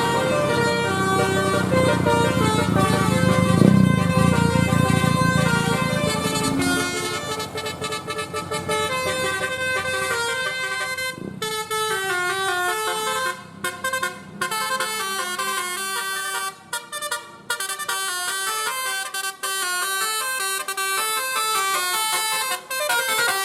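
Bus basuri (telolet) musical horn playing a fast tune of short notes stepping up and down in pitch. For the first several seconds a bus engine is heard running loudly under it; later the horn plays on in phrases with brief breaks.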